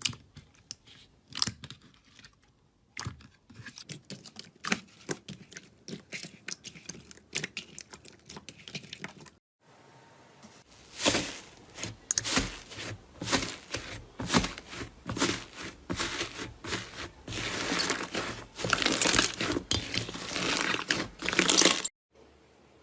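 Slime being squeezed and poked by hand, giving rapid crackling, clicking and popping. It comes in several stretches split by short gaps, and from about eleven seconds in it turns louder and denser.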